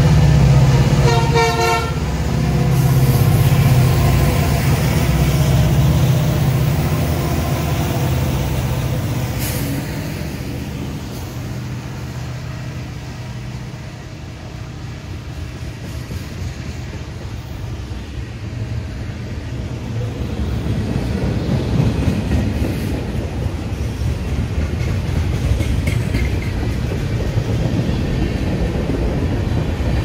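CN freight train passing close by. About a second in, the lead locomotive's P5 horn gives a brief toot over the diesel engines' low running sound. The engine sound fades as the locomotives go by, leaving the steady rumble and clatter of freight cars on the rails, which grows louder again near the end as tank cars roll past.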